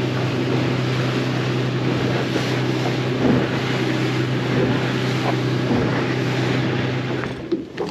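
Small fishing boat's engine running steadily at cruising speed, with water rushing past the hull and wind on the microphone. The engine sound drops away near the end.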